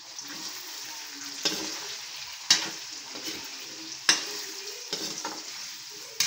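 Pork, potatoes and caldereta sauce sizzling in an oiled wok while being stirred, with a steady hiss and the utensil knocking against the pan about five times, loudest about two and a half and four seconds in.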